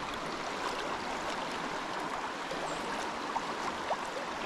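A shallow, rocky trout stream running over a riffle: a steady rush of flowing water with a few small gurgles.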